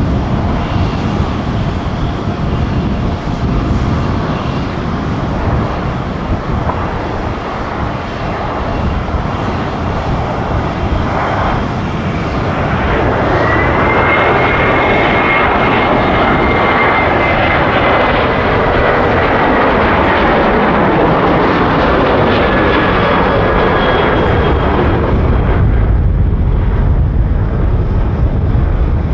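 Boeing 737-800 jet engines through a touch-and-go: a steady roar, then from just under halfway a high whine as the engines spool up to takeoff power, its pitch slowly falling as the jet passes, and a deep low rumble near the end as it climbs away.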